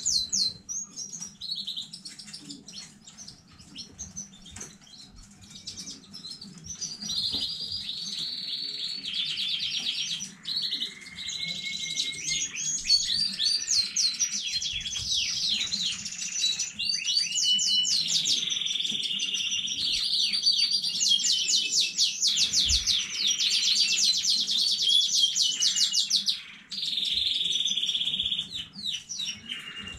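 Domestic canary singing a long, continuous song of rapid trills, rolls and held whistled notes. It starts sparse and becomes louder and unbroken from about six seconds in, with a steady rolled note held for about two seconds near the end.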